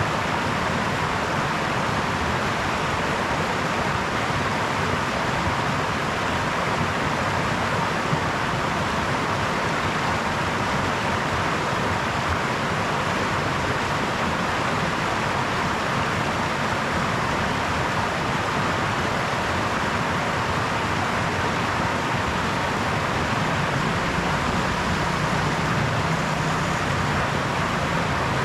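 Steady, unbroken rushing and babbling of a brook's running water.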